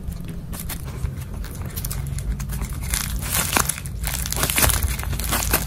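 Handmade paper squishies being squeezed by hand, the paper crinkling in irregular crackles that grow busier in the second half.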